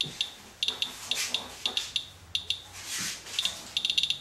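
Radalert Inspector Geiger counter chirping at irregular intervals, short high beeps that sometimes come in quick clusters. Each chirp is one detected radiation count from a wipe sample of rain residue. A soft hiss rises briefly about three seconds in.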